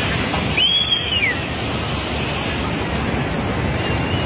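Steady rushing noise of a muddy flash flood flowing down a slope. About a second in, a short high whistle rises and falls over it.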